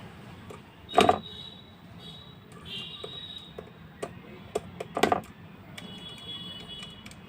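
Hands working the wiring of an electrical switchboard socket, two sharp knocks about a second in and about five seconds in, with lighter clicks just before the second.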